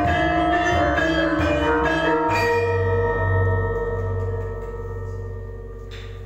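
Javanese gamelan closing a piece: bronze metallophones and gong-chimes strike a quick run of notes. About two seconds in a final stroke lands on the large hanging gong, and its low, pulsing hum fades slowly while the metal keys ring out.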